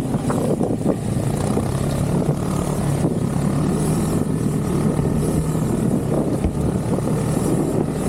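Snowmobile engine running steadily while riding, a constant drone that holds one pitch.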